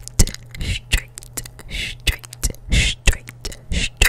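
Close-miked ASMR mouth sounds: whispering with short hissy sibilants, broken by quick wet clicks and smacks of gum chewing.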